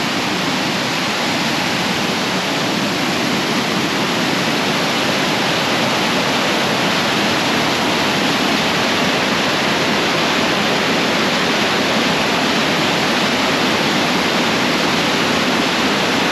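Mountain creek rushing down a steep rocky cascade in whitewater: a loud, steady rush of water heard close up.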